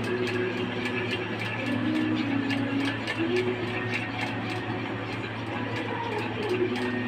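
A spoon clinking against the inside of a stainless steel milk pitcher while stirring coffee with caramel syrup: quick, light clinks, about three a second, over a steady low hum.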